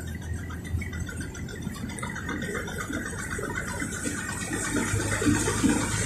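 Excursion boat's engine running with a steady low hum under the rush of water and wind, growing a little louder near the end.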